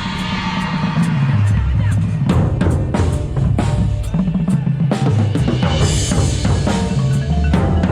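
Marching percussion section playing a loud, driving passage of snare and bass drum hits, with mallet keyboards and electronics underneath.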